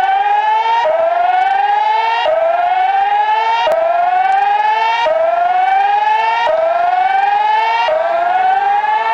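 Electronic emergency alert siren sounding a tsunami evacuation alarm: a loud pitched tone that rises steadily, drops back and rises again about every one and a half seconds, over and over.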